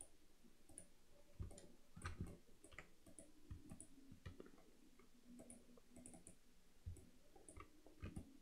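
Near silence with faint, scattered clicks of a computer mouse and keyboard, irregular and a second or so apart.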